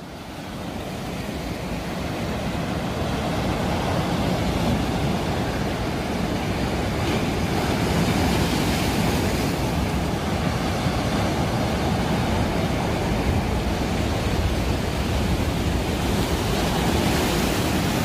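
Sea waves breaking and washing over a rocky shore in a steady rushing surf that swells over the first few seconds, with wind buffeting the microphone.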